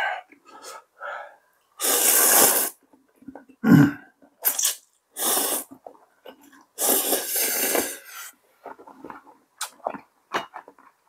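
Close-miked mouth noises while eating: three loud hissing draws of air or food, the last and longest about seven seconds in, with a short low throat sound and small clicks and smacks between.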